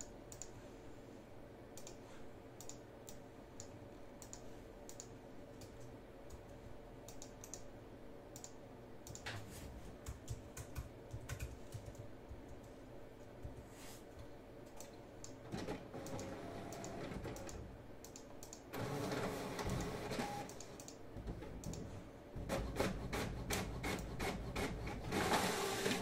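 Faint scattered keyboard taps and mouse clicks at a computer. Longer stretches of rubbing, shuffling noise come in the second half.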